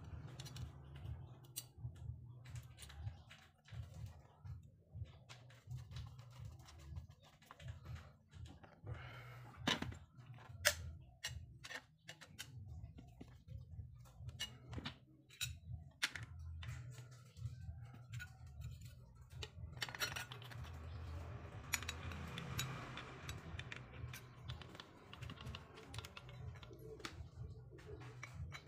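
Small irregular clicks, taps and scrapes of metal parts being handled and a screwdriver turning a screw while a sheet-metal base plate is fitted to an angle grinder, over a faint low hum.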